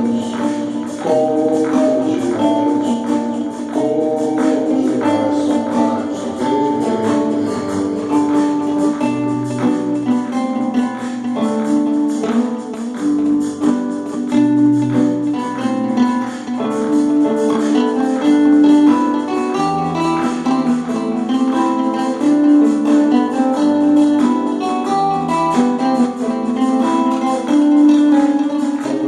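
Instrumental music: acoustic guitar playing the melody over a drum machine beat with tambourine.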